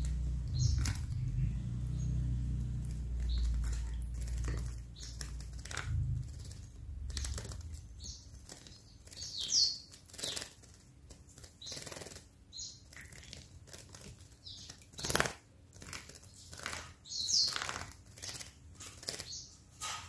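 Pet canary bathing in a small water fountain: repeated short bursts of wing fluttering and splashing, with a few brief high chirps. A low rumble runs under the first few seconds.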